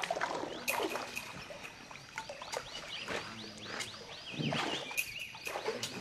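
Outdoor ambience with a bird calling in short chirps, about three a second, from about two seconds in, and a wavering call a little later. Scattered sharp clicks and rustles run under it.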